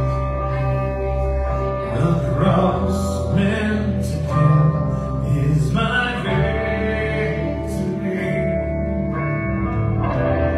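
Live church band playing a worship song with a singer, electric guitars and keyboard.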